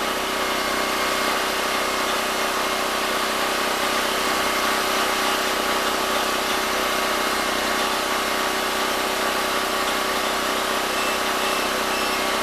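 Predator 6500 generator's single-cylinder engine running steadily at governed speed under a 1500-watt load, with an even drone that holds constant.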